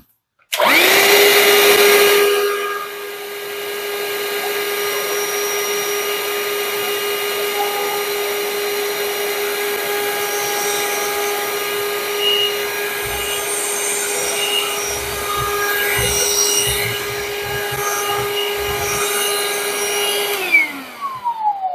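Parkside 20V cordless handheld vacuum cleaner with its extension pole fitted, switching on with a quick rising whine and running at a steady pitch. It is loudest for its first couple of seconds. Near the end it switches off, and the motor winds down in pitch.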